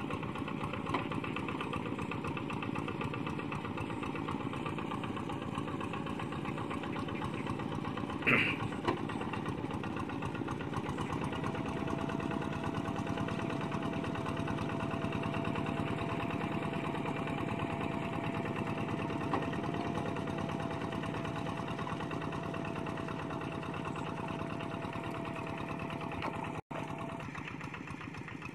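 Single-cylinder diesel engine of a two-wheel hand tractor running steadily while it works the mud of a flooded rice paddy, with a short sharp sound about eight seconds in.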